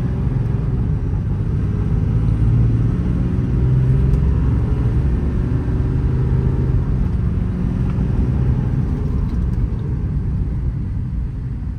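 Ram 5500 service truck under way, its 6.7-litre Cummins inline-six turbo diesel running with a steady low drone and road noise, heard from inside the cab. A faint tone climbs slowly over the first seven seconds as the truck picks up speed.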